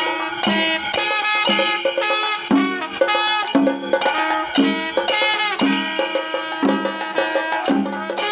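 Music: a melody over a steady percussion beat.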